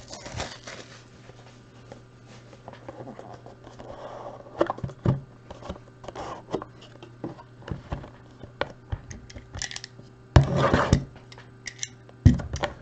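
Cardboard trading-card box being handled and opened, with scattered scrapes, taps and clicks over a faint steady low hum. There is a louder scraping rustle about ten seconds in and a sharp knock near the end.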